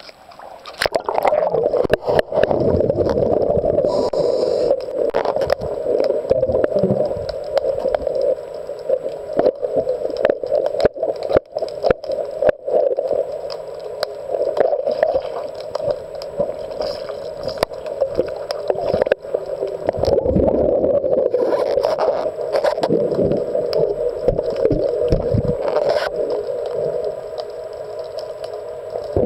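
Muffled underwater sound picked up by a camera held beneath a boat's hull: a steady rushing with scattered clicks and knocks.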